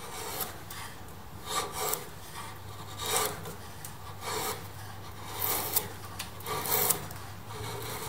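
Sharp hand chisel paring thin shavings from a wooden block, pushed by hand in a series of short scraping slices, roughly one a second.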